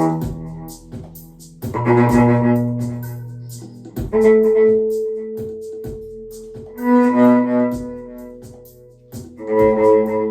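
Music: slow phrases of long, held pitched notes that swell and fade about every two to three seconds.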